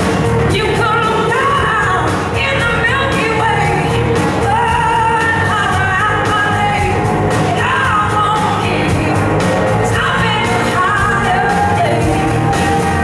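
Live blues-rock band playing: a woman sings the lead in a string of phrases over electric guitars and a drum kit.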